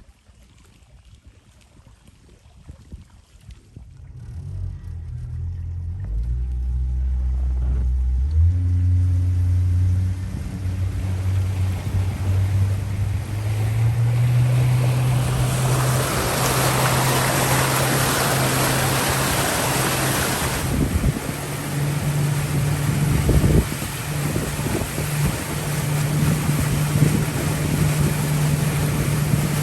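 A pontoon boat's outboard motor comes in about four seconds in and its pitch climbs in several steps as the throttle is opened, then holds steady at speed. A loud rush of wind and water noise rises over it for several seconds near the middle.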